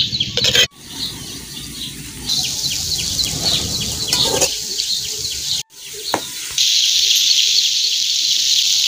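Dal and chopped green chillies sizzling in oil in a kadhai while being sautéed with a spatula. A bird chirps quickly and repeatedly in the background. The sound cuts out abruptly twice.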